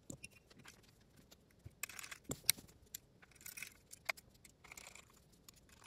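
Faint small clicks and light scratchy scraping of a precision screwdriver turning screws into a bodypack receiver, with hands handling the unit; the sharpest clicks come about two seconds in.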